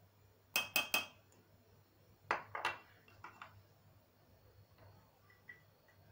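A spoon tapping against a stainless steel mixing bowl while wheat starch is spooned in, making ringing metallic clinks. There are three quick taps just under a second in, then two or three more a little after two seconds, and a few fainter knocks after that.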